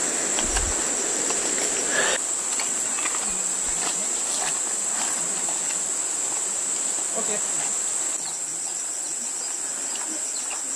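Steady, shrill chorus of tropical forest insects, one high unbroken drone. A broader hiss beneath it cuts off about two seconds in.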